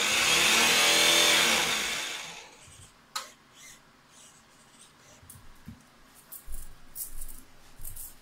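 Electric drive motor and propeller of a radio-controlled model tugboat running out of the water with a whine, which falls in pitch and dies away about two seconds in as the motor winds down. A few light clicks and knocks follow.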